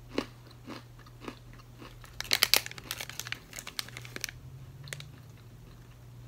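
Crunchy achira cheese biscuit being bitten and chewed close to the microphone: a burst of loud crunches about two seconds in, then chewing that dies away after about four seconds. A steady low hum runs underneath.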